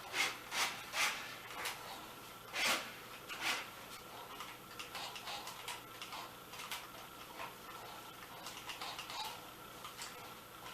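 Irregular sharp clicks and taps: a few loud ones in the first four seconds, then lighter, quicker ticks.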